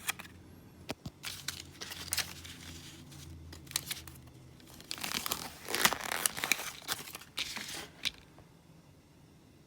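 Retail packaging of a microSD card being handled and opened: crinkling and tearing with sharp clicks and rustles. The noise stops about eight seconds in.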